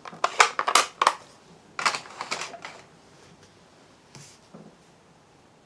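Sharp plastic clicks and taps as a stamp on a clear acrylic block is tapped onto a black ink pad and the pad's plastic case is handled. Most of the taps fall in the first two and a half seconds, with two faint ones a little after four seconds.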